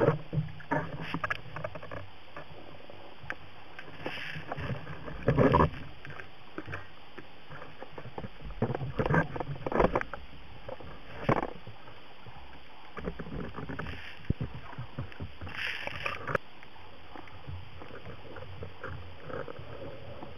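Underwater sound of a freediver moving with a band-powered speargun: irregular knocks, scrapes and rushes of water against the camera over a steady hiss, then one sharp crack about sixteen seconds in as the speargun fires.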